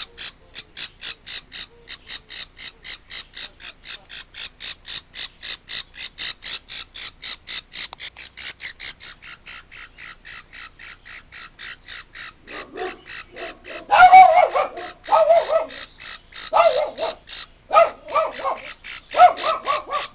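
Featherless baby parrot chick cheeping in a rapid, evenly spaced run of high calls, several a second. From about twelve seconds in, louder, lower, harsh cries come in separate bursts, the loudest about fourteen seconds in.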